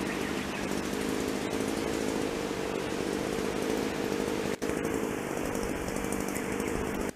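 A small engine running at a steady pitch, with a brief dropout about four and a half seconds in.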